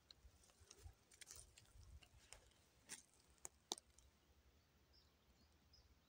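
Faint crackles and a few sharp ticks of footsteps on dry leaf litter and twigs, over near silence.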